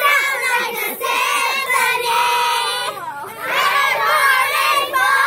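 A group of young girls shouting and singing together at close range, their high voices overlapping in long, held cries, easing off briefly about three seconds in before picking up again.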